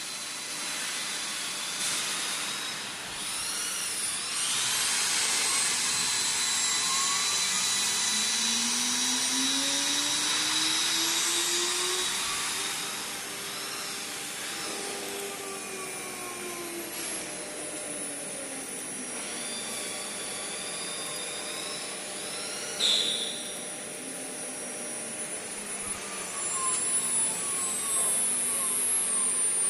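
CNC router spindle motor spinning at high speed with a high whine and a rushing hiss, its tones gliding up and then back down as the speed changes. A brief louder burst comes about two-thirds of the way through.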